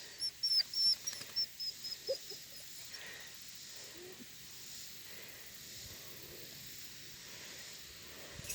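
A quick run of short, high chirps in the first second and a half, then a couple of brief low whimpers from a Bernedoodle puppy about two and four seconds in. After that only faint rustling.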